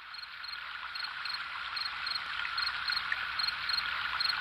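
Crickets chirping in short, evenly spaced trills over a steady high insect drone, fading in from silence and growing louder.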